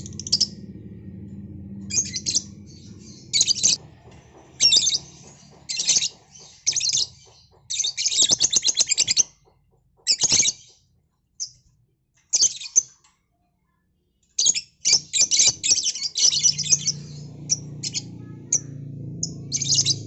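Lovebirds chirping in repeated bursts of rapid, high-pitched chirps, some bursts running a second or more, with short gaps between. A low steady background hum sits under the chirps at the start and near the end.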